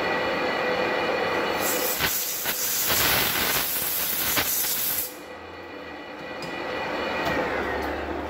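Manual lathe running with a steady gear whine, then a compressed-air blow gun hissing for about three and a half seconds, blowing swarf off the freshly cut thread and insert. After the hiss cuts off, the lathe's whine falls in pitch as the spindle slows.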